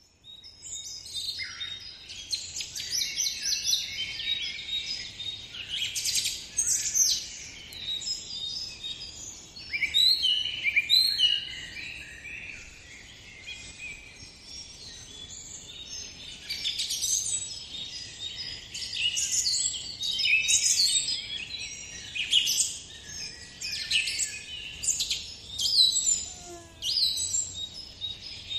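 A chorus of small birds chirping and singing, with many short, high calls and trills overlapping and swelling and fading in loudness.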